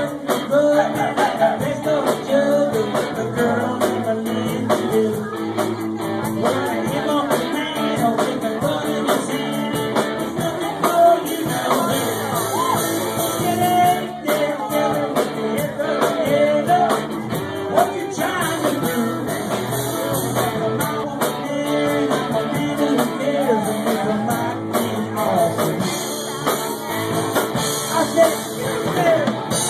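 Live rock band playing, with electric guitar, drums and a singer.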